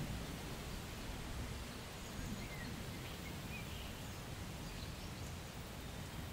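Steady rain-and-storm ambience from a thunderstorm sound effect, an even hiss with a low rumble under it, with a few faint high chirps about two to three seconds in.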